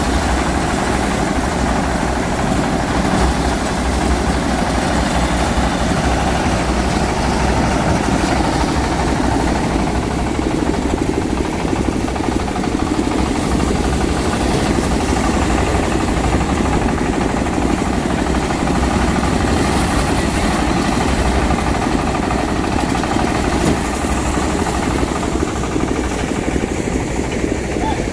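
Engine of a motorized rice threshing machine running steadily at a constant speed.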